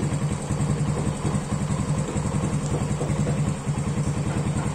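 Motorcycle engine idling steadily, with a fast, even low pulsing.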